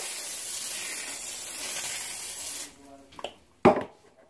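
Aerosol cooking-oil spray hissing in one long steady burst, cutting off suddenly about two and a half seconds in as the oil is sprayed over the raw chicken wings. A couple of light knocks and one sharp thump follow near the end.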